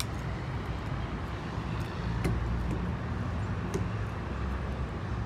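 Steady low rumble of city traffic heard from high up a building, with two light clicks in the middle.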